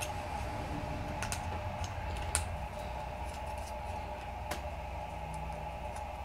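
Razor blade trimming a 3D-printed ABS plastic part: a scattered handful of small sharp clicks and snaps as bits of plastic are cut away, over a steady hum.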